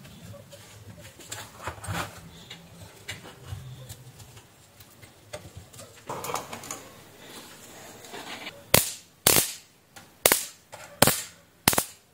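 Bug zapper's high-voltage electrode grid arcing, a series of sharp snapping cracks, about six in three seconds, beginning about three-quarters of the way in. The sparking shows the unit's high-voltage section is working.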